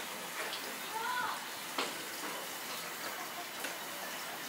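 Kitchen background noise: a steady hiss like running water, with faint voices and a sharp click a little under two seconds in.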